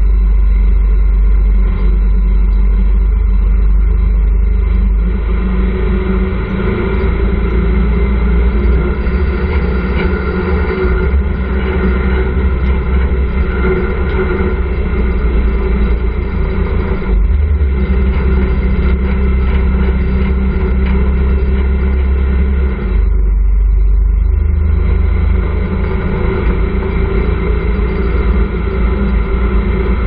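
Motorcycle engine of a tricycle (motorcycle with sidecar) running steadily while underway. The engine note shifts briefly twice, about 17 and 23 seconds in.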